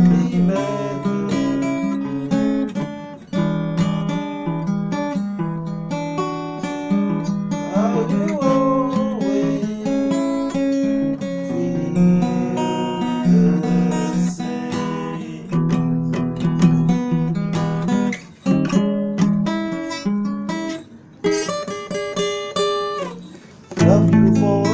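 Acoustic guitar strummed and picked, playing a song in the key of F.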